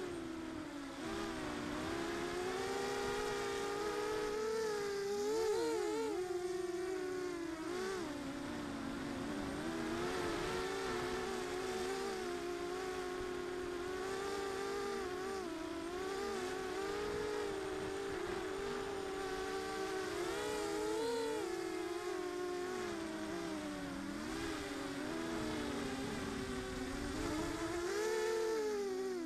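Small FPV quadcopter's brushless motors and propellers buzzing, heard from a camera on the aircraft; the pitch keeps rising and falling as the throttle changes.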